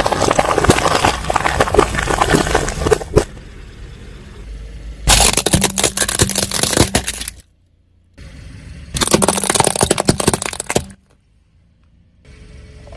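Car tyres crushing brittle objects with dense crackling and crunching, in three bursts of a few seconds each, broken by two sudden drops to silence.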